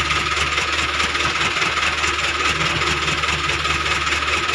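A CAT mini excavator's diesel engine idling steadily.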